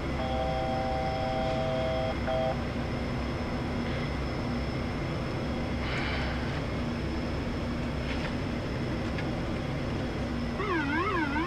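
Steady engine, propeller and airflow noise in the cockpit of an ATR 72 turboprop on final approach, with the landing gear down and flaps at 30. A brief steady multi-pitched tone sounds for about two seconds near the start.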